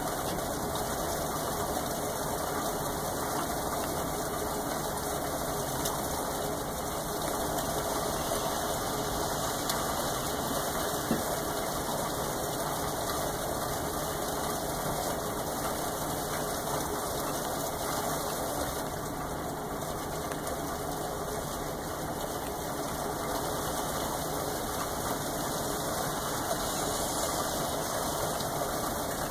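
Steady rain falling: a continuous even hiss with no thunder.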